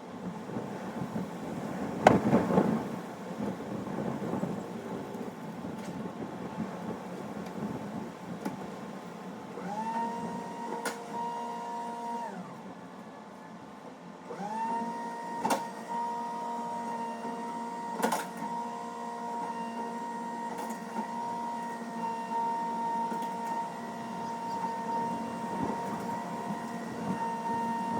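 A loud thump about two seconds in. Later a small engine revs up and holds a steady high speed, drops off for a couple of seconds, then revs up again and runs on steadily, with a few sharp clicks over it.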